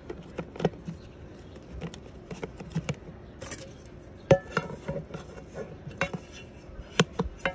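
Camping cookware being handled and nested: a frying pan and lids knocking and clinking against a pot in scattered light taps. There is one louder ringing metal clang about four seconds in.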